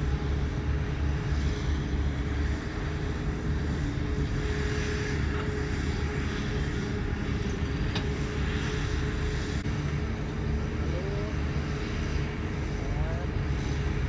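Heavy earthmoving machine's diesel engine running steadily with a low rumble and a faint steady higher tone above it; one sharp click about eight seconds in.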